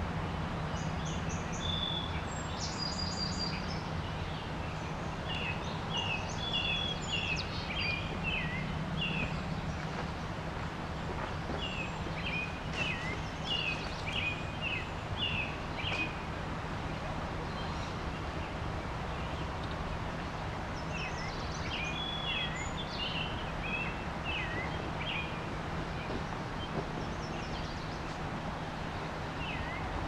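River water rushing steadily, with a songbird singing the same short phrase of quick chirps over it about every seven or eight seconds, and a few higher notes near the start.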